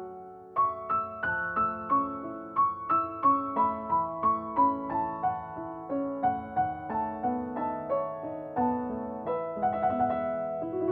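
Background music: a gentle piano melody of single struck notes, about three a second, after a brief pause about half a second in.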